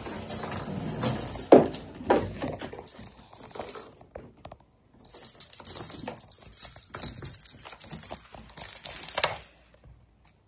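Plastic rattle balls rattling and knocking as kittens bat and chase them across a wooden parquet floor, with many irregular clicks and knocks. The sound drops out briefly about four seconds in.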